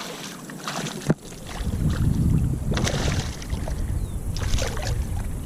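Knocks and clicks of handling gear and a landed bass in a kayak, with one sharp knock about a second in. A low rumble of handling on the microphone follows.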